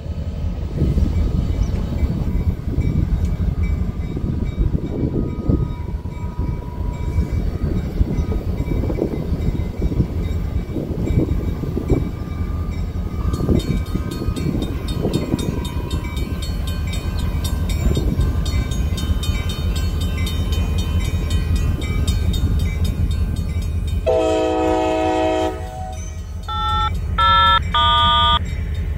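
Diesel locomotive and rail cars rumbling along the track with wheel clatter. About 24 seconds in, a locomotive's multi-chime air horn sounds one long blast, then several short toots near the end.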